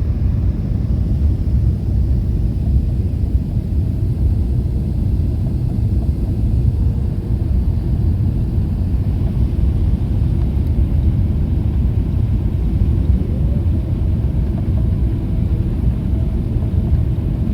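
Steady low rumble of a Boeing 777-300ER heard from inside the cabin: engine and airflow noise. A faint whine rises and then holds about three-quarters of the way through.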